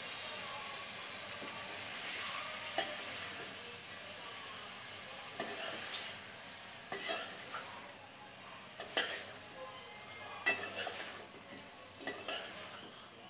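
Chicken pieces and spice powder being stirred and mixed in a metal pot, over a steady hiss that slowly fades. A steel spoon clinks against the pot several times.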